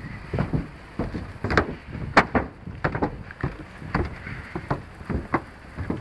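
Wind buffeting the camera's microphone: a low rumble broken by irregular crackling bumps, several a second.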